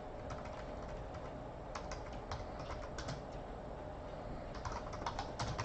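Computer keyboard typing: irregular keystroke clicks with short pauses, quickening into a run of keys near the end.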